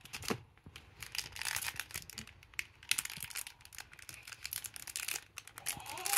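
Foil trading-card booster pack crinkling in the hands and being torn open, a run of irregular sharp crackles.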